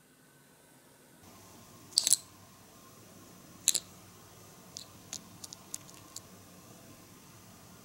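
Small sharp clicks of a miniature cookie tin being handled: two louder clicks about two and three and a half seconds in as the lid is worked off, then a run of faint light ticks as the tiny cookie tray is pressed down in the tin.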